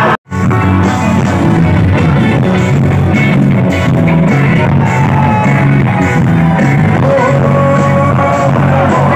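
Live band music played loud over a stage sound system, heard from the audience, with a singing voice over keyboard and guitar. The sound cuts out for a moment just after the start.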